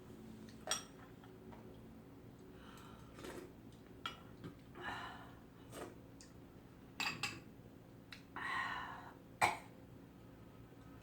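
A person clearing her throat and breathing out in a few short breathy bursts, with several sharp clicks of utensils or dishes in between, over a faint steady hum.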